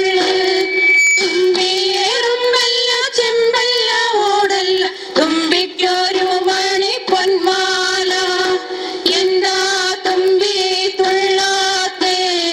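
A woman's voice singing a Malayalam Thumbi Thullal folk song in a flowing melody over a steady held note.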